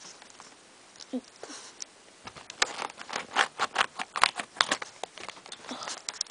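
Toy packaging being handled and opened: a run of sharp plastic clicks and crinkles, sparse at first and coming thick and fast over the last few seconds.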